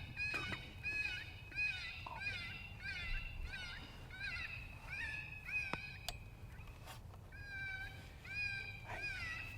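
Electronic predator call (FoxPro Shockwave) playing a looped animal distress sound: high-pitched meow-like cries repeated about twice a second, with a short break in the middle. A single sharp click about six seconds in.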